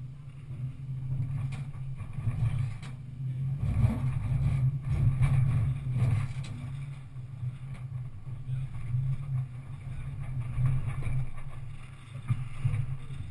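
Off-road vehicle's engine running with a steady low drone as it crawls over rock ledges, growing louder for a couple of seconds around four to six seconds in, with a few short knocks early on the climb.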